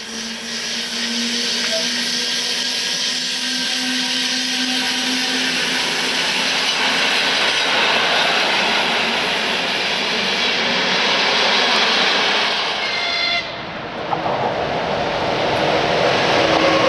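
Electric passenger train passing at speed, a steady rush of wheel and air noise that builds over the first few seconds. About thirteen seconds in it cuts off suddenly and gives way to an electric locomotive hauling a freight train of covered wagons past.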